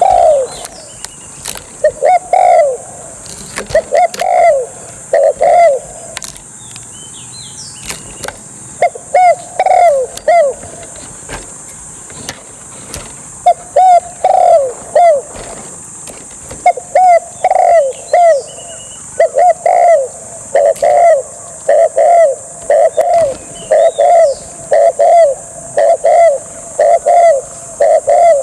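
Spotted dove cooing loudly in repeated phrases of short coos, broken by pauses early on and running as an even, unbroken series from about halfway through. Faint chirps from small birds and a steady high hiss run underneath.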